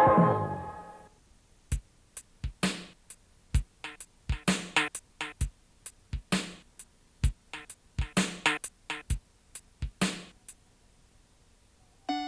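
Music: a sustained organ-like chord fades out, then a bare drum beat of deep kick and sharp snare hits plays for about nine seconds and stops. A new keyboard note comes in near the end.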